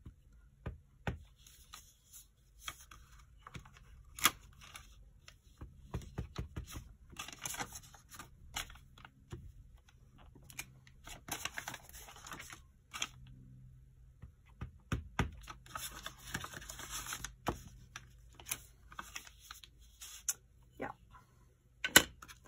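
A clear stamp on an acrylic block is tapped onto a Distress Oxide ink pad and pressed onto paper. Scattered light taps and clicks, with stretches of paper rustling and handling in between.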